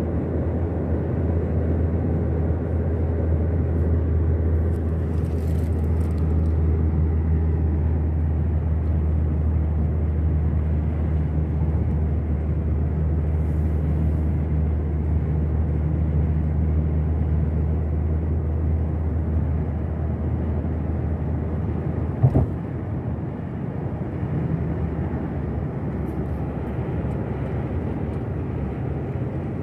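Steady engine and road drone of a moving car, heard from inside the cabin. A single sharp knock comes about two-thirds of the way through, after which the drone is a little quieter.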